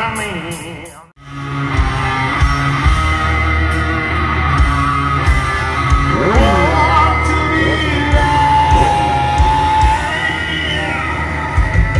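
Rock music with a singing voice over a heavy bass line. It cuts out briefly about a second in, then starts again.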